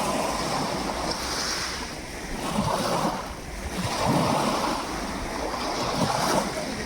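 Sea waves washing in and drawing back, swelling and ebbing every second or two, with wind buffeting the microphone as a low rumble.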